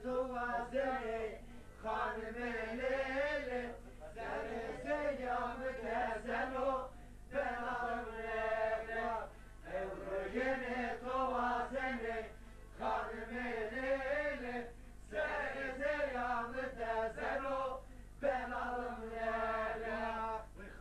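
Male singing of a folk song with a repeated refrain, in sung phrases a few seconds long broken by short pauses for breath. A steady low hum runs underneath.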